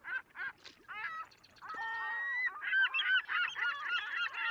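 A flock of birds calling: short, rapid calls at first, then a longer held call, then many overlapping calls crowding together from about three seconds in.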